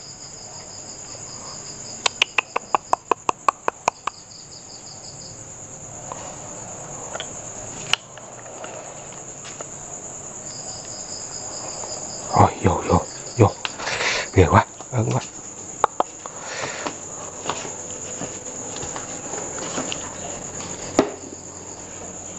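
Crickets and other night insects chirring steadily in a high-pitched chorus, with a pulsing trill near the start and again around the middle. About two seconds in comes a quick run of sharp clicks, about five a second. Around twelve to fifteen seconds in there is a cluster of louder knocks and thumps.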